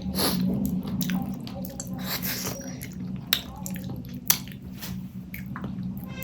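Close-up wet eating sounds of rice and fish curry: chewing, squishing and lip smacks, with scattered sharp clicks, over a steady low hum.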